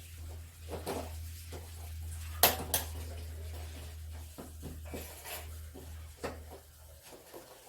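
Sharp clinks and knocks of small hard objects being handled, two louder ones about two and a half seconds in, over a steady low hum that stops near the end.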